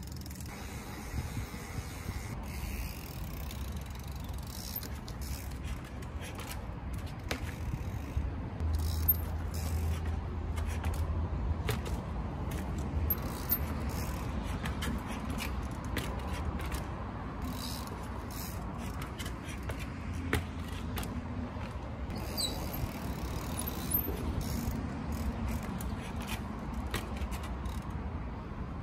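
Yeti mountain bike being ridden through trials moves: scattered clicks and knocks from the bike and scraping of the tyres, over a steady low rumble.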